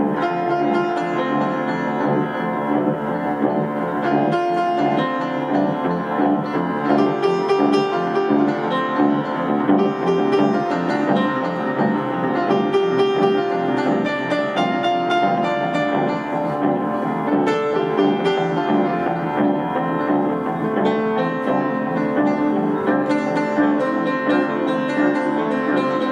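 Upright piano and amplified guitar playing together live, a steady flow of overlapping held notes.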